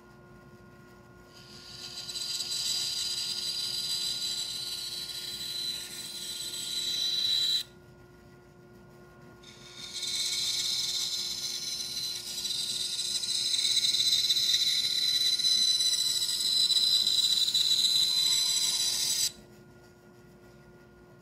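Bandsaw cutting hard maple along curved template lines: two cuts, one about six seconds and one about nine seconds long, each a loud hissing rasp with a high whine while the blade is in the wood. Between and after the cuts the saw runs free with a steady motor hum.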